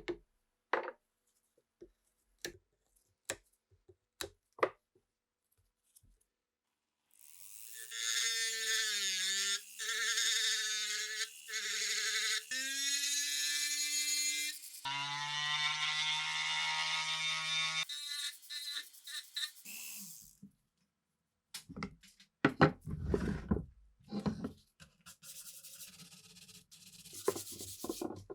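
Scattered clicks and light knocks, then a small motor running for about ten seconds, its pitch shifting in steps as the speed changes. Near the end come clusters of sharper knocks and clicks.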